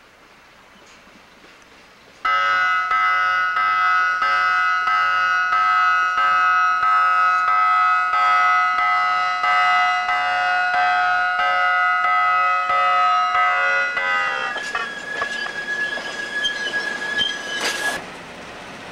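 Air horn of a passing Budd RDC passenger railcar blowing one long chord, starting about two seconds in and held for about twelve seconds over a regular clicking of wheels on rail joints. As the horn stops, a single high steady squeal from the wheels on the curve goes on with the clicking for a few more seconds, then cuts off.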